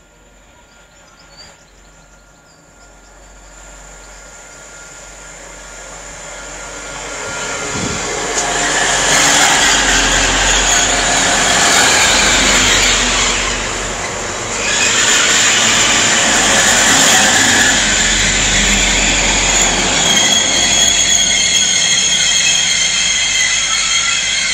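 Diesel passenger trains at a station: one goes past close by, loud, and dies away briefly, then another runs in along the platform with a high squeal near the end.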